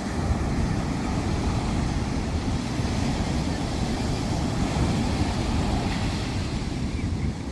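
Sea waves washing onto a sandy beach, a steady surf noise with a heavy low rumble of wind buffeting the microphone.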